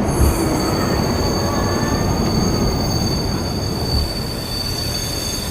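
Train running on rails: a steady rumble with a sustained high-pitched squeal of steel wheels.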